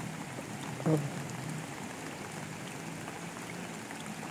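Steady patter of rain falling on water and vegetation, with a brief voice sound about a second in.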